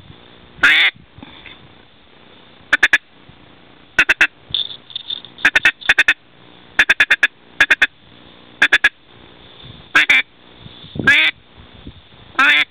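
Duck quacks, loud and close: single drawn-out quacks that fall in pitch, mixed with quick clusters of two to four short chuckling notes, about a dozen separate bursts with brief pauses between them.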